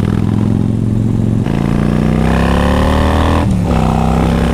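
Victory Gunner's 106-cubic-inch Freedom V-twin engine running under way: the pitch drops at a gear change about a second and a half in, climbs steadily as the bike accelerates, then drops again at another upshift near the end.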